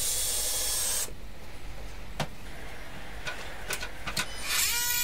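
Cordless drill driver running for about a second as it drives a screw into the wooden brace, then a few light clicks and knocks. Near the end a power tool starts up with a whine that rises and then holds steady as it is set to cut out the ceiling coving.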